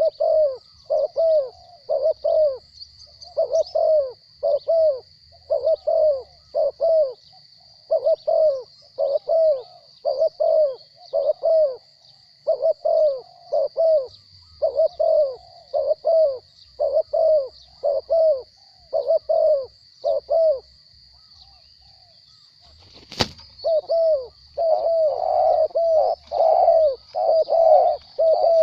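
Spotted doves cooing in a long run of evenly spaced low coos, pausing briefly about three quarters of the way in. A single sharp knock then sounds, and the cooing resumes, denser and louder. A steady high-pitched hum runs underneath.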